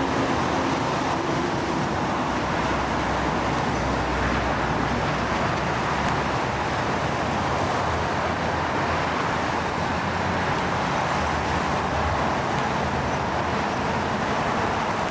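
Road traffic noise: a steady rush from passing motorbikes and scooters.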